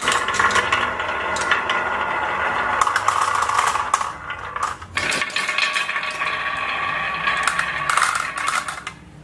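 Marbles rolling and clattering down a plastic marble-run track, a steady rolling rattle with many small clicks. It breaks off briefly about halfway, starts again, and fades out just before the end.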